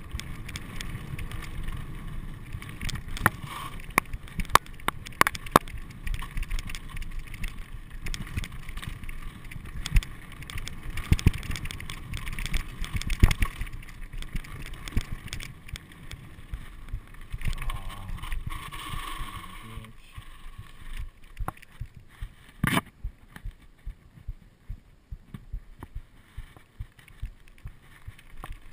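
Mountain bike ridden fast over a rough dirt and gravel trail: tyres crunching, a steady rush of air and the bike rattling with many sharp knocks over bumps. About two-thirds of the way through it gets quieter and the knocks thin out to scattered clicks, with one sharp knock.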